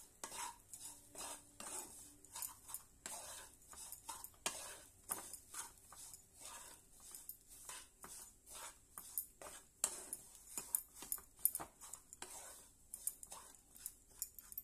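Wooden spatula stirring and scraping dry semolina and grated coconut around a kadhai as they are dry-roasted: a steady run of irregular short scrapes and taps against the pan, several a second.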